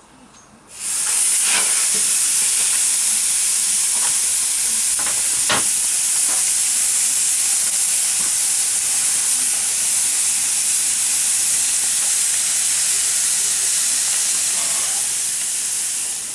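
Large marinated flap steak (bavette) sizzling loudly on the hot grate of a four-burner gas grill at full heat: a searing hiss that starts suddenly about a second in as the meat goes down. A few clicks of handling early on, and the sizzle fades near the end as the grill lid closes.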